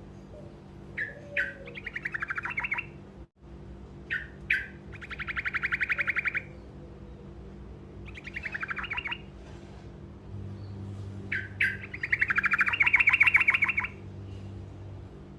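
A songbird known to keepers as a truco singing short rolling trills: one or two sharp chirps, then a fast roll of rapidly repeated notes lasting about a second. Five or six such phrases, the longest and loudest near the end.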